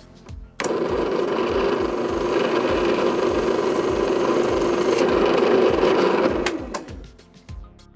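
Benchtop drill press switched on and running steadily while a 1/8-inch twist bit drills a hole through the die-cast aluminium top of a Hammond 1590BB enclosure. The motor starts abruptly about half a second in and winds down from about six and a half seconds.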